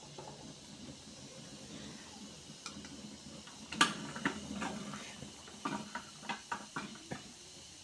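Metal spoon clinking and scraping against a wok as vegetables are stirred, a run of sharp clinks starting about a third of the way in, the loudest near the middle.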